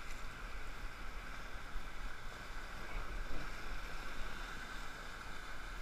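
Steady rushing of whitewater in Class III river rapids, heard from inside an inflatable raft as it runs through the waves.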